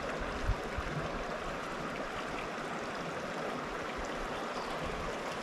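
Mountain creek water running steadily over rocks, an even rushing sound, with a brief low thump about half a second in.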